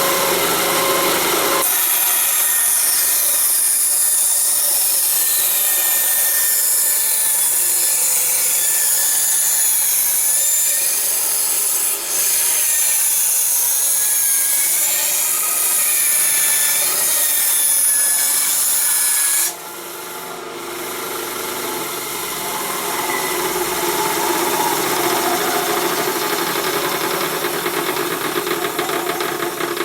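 An electric power tool working wood, its motor pitch wavering as it bears into the cut. About two-thirds of the way through it stops abruptly and gives way to a quieter, different sound.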